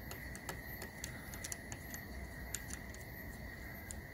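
Steady, high-pitched insect chorus with faint scattered clicks from hands working the telescope mount's azimuth adjustment bolts.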